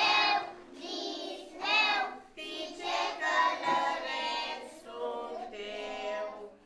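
A choir of children's voices singing a melody in held, wavering phrases.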